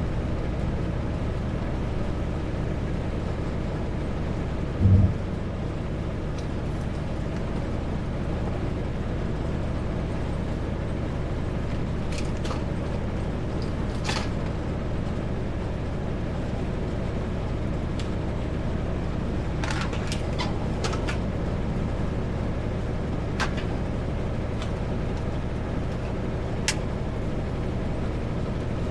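Kenworth W900L semi truck's diesel engine running steadily at highway speed, with road noise, heard from inside the cab. There is a brief low thump about five seconds in, and a few faint clicks later on.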